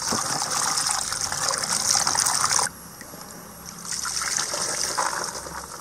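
Tap water running into a plastic bowl of cut potato sticks while a hand swishes them, cutting off sharply about two and a half seconds in. Then fainter water pouring as the bowl is tipped to drain.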